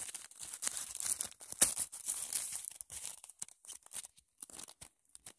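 Plastic wrapper of a sanitary pad crinkling and tearing as it is opened by hand. There is a sharp crack about a second and a half in, and the sound thins to a few faint crackles near the end.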